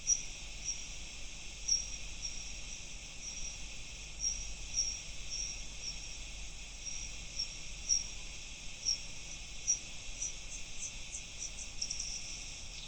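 Bat echolocation calls, slowed and pitched down three octaves into the audible range, heard as short chirps over a steady hiss. They come irregularly, one or two a second, then crowd into a quick run near the end.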